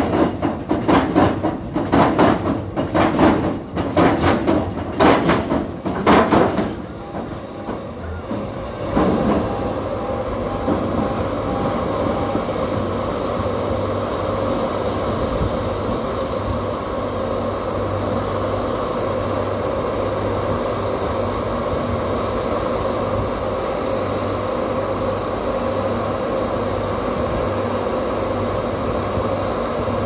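Pile-foundation construction machinery: a run of heavy rhythmic knocks, about one and a half a second, that stops six or seven seconds in. After a short lull an engine runs steadily.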